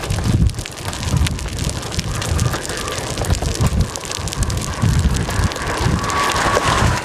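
Strong wind buffeting the camera's microphone in uneven gusts, under a dense, steady crackle.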